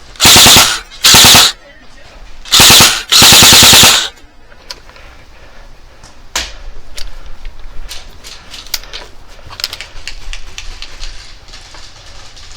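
Airsoft gun firing four short full-auto bursts in quick succession, very loud and close, with a rapid even rattle of shots. Then scattered fainter clicks and snaps.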